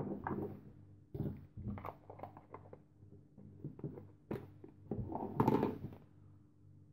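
Hard plastic storage case and small metal camping stove being handled on a wooden table: a scattered series of light clicks and knocks, with the loudest cluster about five and a half seconds in.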